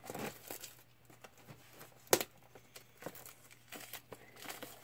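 Plastic wrap being torn and pulled off a plastic blister tray, crinkling in scattered short crackles, with one sharp click about two seconds in.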